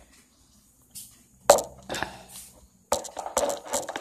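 Handling noise close to the phone: a sharp knock about one and a half seconds in, then bursts of crackling rustle with quick clicks, like things being moved about by hand.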